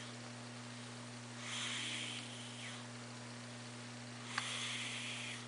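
A sleeping cat snoring: two breathy snores, each about a second long and roughly three seconds apart, with a small click at the start of the second, over a steady low hum.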